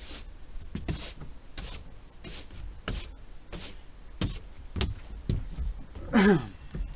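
Footsteps shuffling and scuffing on a gritty bare fibreglass boat floor, a short scrape every half second or so, then one brief falling pitched sound near the end.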